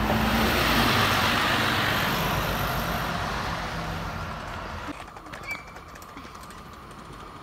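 City bus driving off close by, its engine and tyre noise loud at first and fading over the next few seconds. About five seconds in, the sound switches to quieter station-platform background with a train in the distance.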